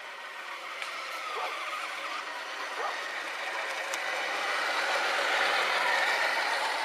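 Electric RC trucks (a Traxxas Summit, a Himoto Mastadon and a scale crawler) driving over gravelly dirt: motor and gear whine with tyres grinding on gravel. It grows steadily louder as one drives close.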